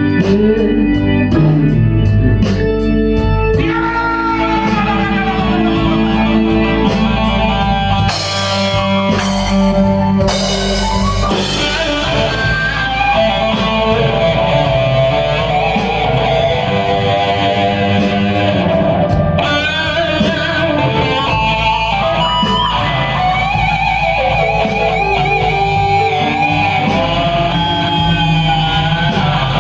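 Blues-rock band playing live, an electric guitar leading with bent notes over bass and drums.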